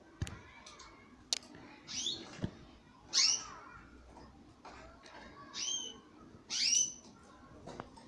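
Domestic canaries calling: about five short chirps, each sweeping down in pitch, spaced roughly a second apart, with a few sharp clicks in between.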